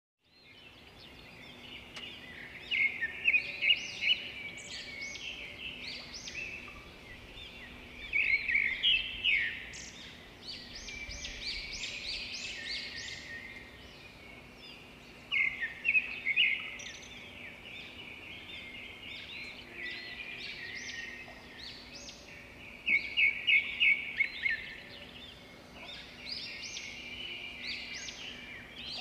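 Birds chirping and calling throughout, several voices overlapping, with a loud run of quick, rapid chirps coming back every several seconds.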